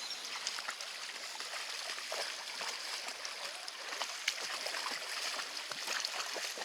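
Creek water running over rocks, an even rushing hiss, with scattered small clicks and knocks over it.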